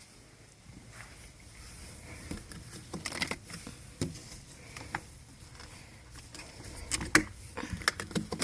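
Handling noise as the phone or camera is carried to another window: scattered light clicks and knocks over a faint steady background, more frequent from about three seconds in.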